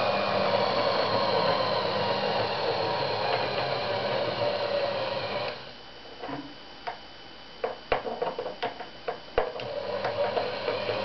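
Homemade electric cone yarn winder running, its motor and grooved traverse drum giving a steady whir. About halfway through the whir drops away. A handful of sharp clicks and knocks follow, and the whir starts up again near the end.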